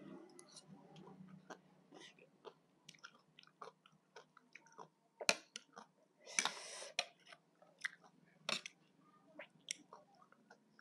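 A person chewing a mouthful of shredded green papaya salad close to the microphone: many small wet crunches and mouth clicks, with one louder, longer noise about six seconds in.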